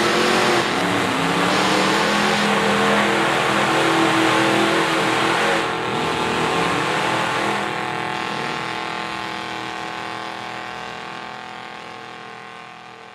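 The V8 with open headers in a lifted GMC pickup on 44-inch mud tires, revving hard as the truck churns through deep mud. About halfway through the engine note steadies and then fades away steadily.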